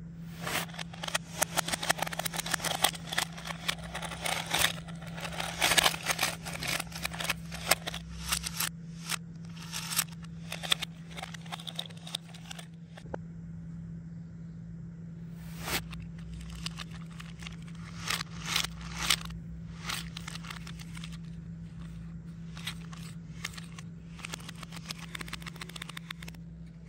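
Hands sweeping and stirring through a tray of small foam beads: a dense crackling rustle, thickest in the first half, then in shorter bursts. A steady low hum runs underneath.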